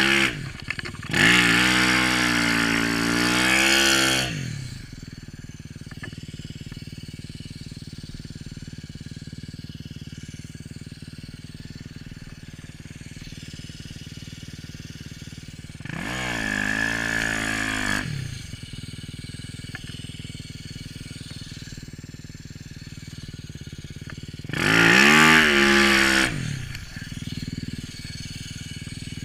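Yamaha YZ450 snowbike's four-stroke single-cylinder engine idling low, revved hard three times, each rev rising and then falling in pitch: the first about a second in and lasting some three seconds, the next around the middle, the last near the end. The revs are the rider pinning the throttle to chainsaw the bike out of deep snow while stuck.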